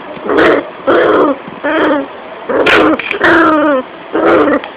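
A dog growling and yipping in about six short bursts, some falling in pitch, as a hand wrestles with it; the title takes the dog for angry.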